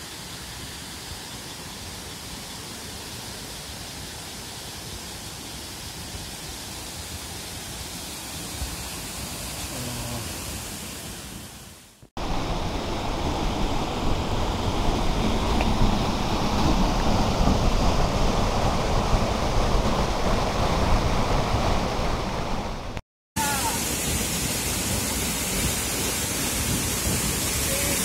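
A mountain waterfall and its stream rushing steadily. The sound cuts off abruptly twice, about twelve and twenty-three seconds in, and is louder after the first cut.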